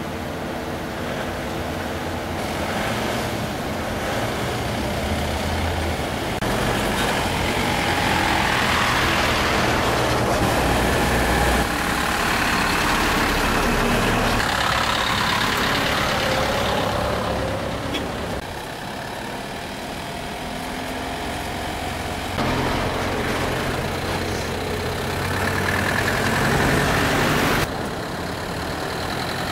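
Engines of several school buses running as they pull away and drive past one after another, a steady engine hum that changes abruptly a few times.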